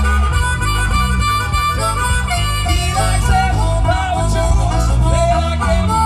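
Live amplified harmonica played cupped against a handheld microphone, with sliding, bending notes over a rock band of electric guitars and bass guitar.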